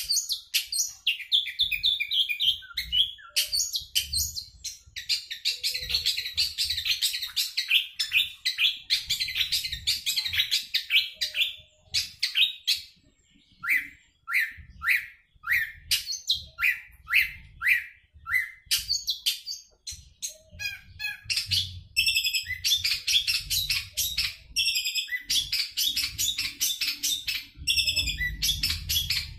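Caged long-tailed shrike singing a long, fast, varied song of chattering phrases, the full medley of borrowed calls that keepers prize. About halfway through, the song slows for several seconds to a run of separate, evenly spaced notes, then breaks back into rapid chatter.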